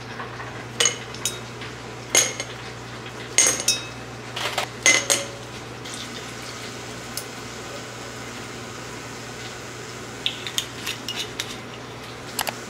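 Ice cubes dropped with tongs into a stemmed glass wine glass, clinking sharply several times in the first five seconds. Then red wine is poured over the ice, and a few lighter clinks of ice against glass come near the end.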